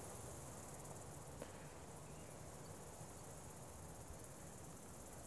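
Faint outdoor background during a pause: a steady low hiss with a high, rapid insect chirring, and one soft tick about a second and a half in.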